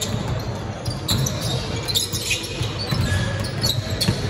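A basketball game in a gym: the ball bouncing on the court, heard as irregular thuds over a steady background rumble.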